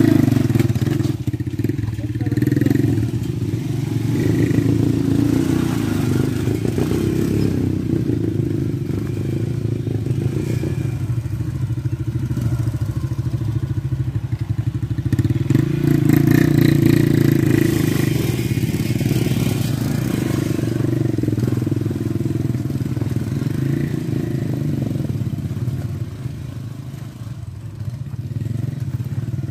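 Motorcycle engines running at low speed, labouring up a rough, rocky dirt trail. The engine note holds steady, a little louder about two-thirds of the way in and easing off near the end.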